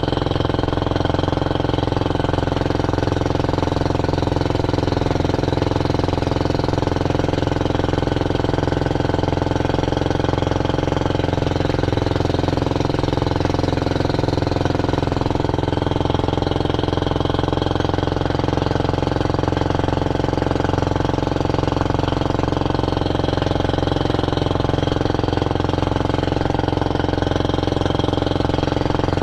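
Outrigger boat's engine running steadily while under way, its pitch and loudness holding even throughout.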